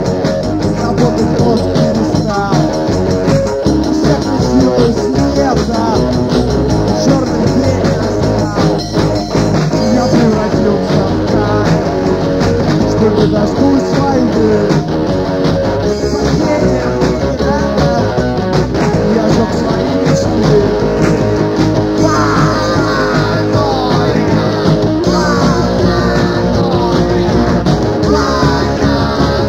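Rock band playing a blues number: electric guitar over bass and drums, with little or no singing.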